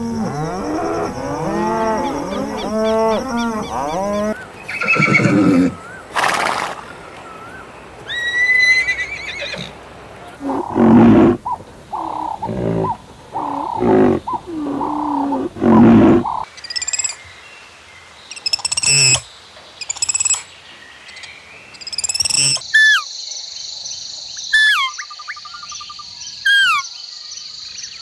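A run of animal calls from several different short clips, changing abruptly every few seconds: overlapping calls at first, then a series of repeated calls about once a second, then short high chirps that drop in pitch over a steady hiss.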